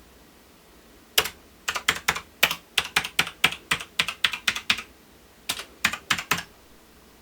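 Typing on a MAXTILL TRON G750 mechanical keyboard: a quick run of sharp key clicks starting about a second in, a brief pause, then a few more keystrokes.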